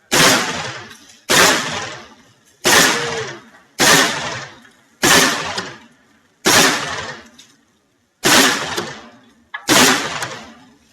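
12-gauge shotgun firing slugs in a steady string: eight shots about a second and a half apart, each a sharp report that fades away over about a second.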